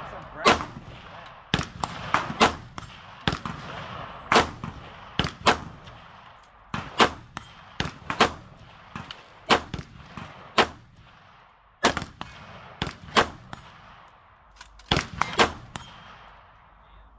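AR-15 rifle in 5.56 NATO with a 16-inch barrel firing single semi-automatic shots, about twenty of them at irregular spacing, some in quick pairs, each shot a sharp crack with a short echoing tail.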